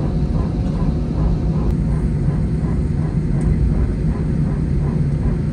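Cabin noise inside an Airbus A320-214 taxiing after landing: a steady low rumble of the CFM56 engines at taxi thrust with a constant hum.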